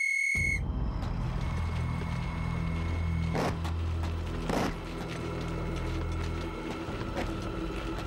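A shrill officer's whistle blast cuts off about half a second in, the signal to go over the top. A low, steady rumble follows, with a few scattered knocks and clicks.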